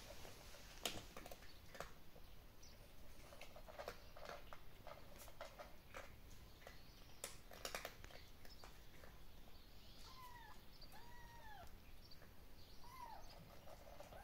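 Kittens mewing: several short mews, each rising and falling in pitch, in the second half. Before them come scattered light clicks and knocks.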